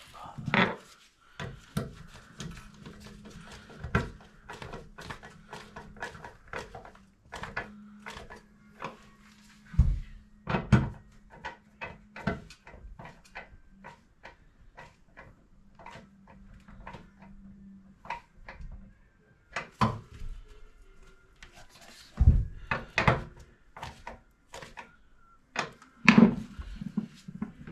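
Scattered knocks, clicks and clatter of hands and tools working on a toilet being set in place, loudest around 10 to 11 seconds in and again near the end, over a low steady hum through much of the first two-thirds.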